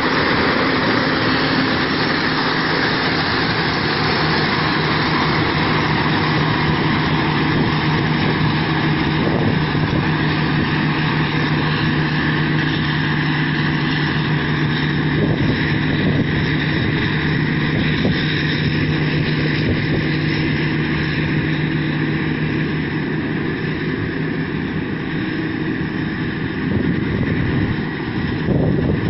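Rice combine harvester's engine running with a steady hum; the hum changes near the end.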